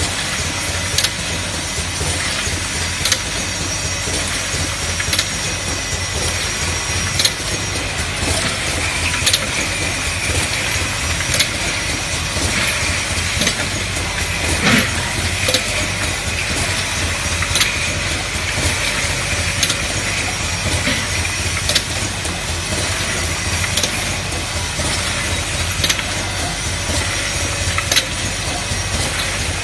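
Ointment filling machine running: a steady mechanical hum and hiss, with a sharp click about every two seconds. The hiss grows stronger through the middle, and there is one louder knock about halfway.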